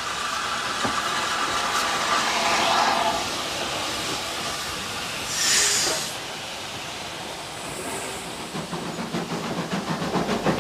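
Steam locomotive and its coaches running past a station platform: a steady hiss of steam over the rolling of the train. About five and a half seconds in, a short, louder burst of steam hiss.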